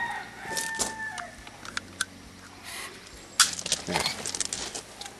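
Banding pliers clicking and snapping as a leg band is closed on a bald eaglet's leg, loudest in a cluster of sharp clicks from about three and a half seconds in. Near the start a bird in the background gives one drawn-out, held call.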